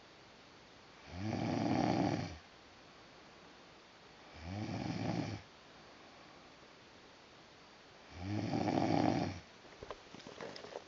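A man snoring in his sleep: three loud snores about three to four seconds apart, each about a second long and rising in pitch at its start. A few faint clicks near the end.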